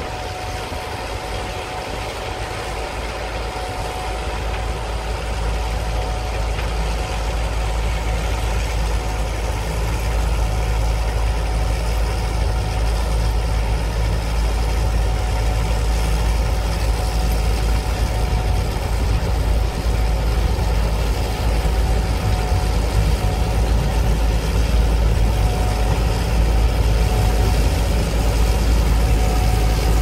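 Gleaner S77 combine running while it picks up swathed oats: a steady low engine and machinery drone with a steady high whine, growing louder as the combine comes closer.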